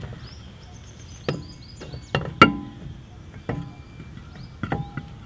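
A spare wheel is fitted onto the hub's wheel studs, producing about five separate metallic knocks. The loudest comes about two and a half seconds in, and several are followed by a brief ringing.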